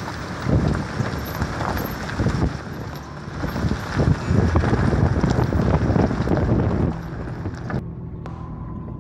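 Vehicle driving on a rough dirt road: wind buffets the microphone and there are irregular low thumps and jolts. Near the end the wind noise drops away, leaving a steady low engine hum inside the car.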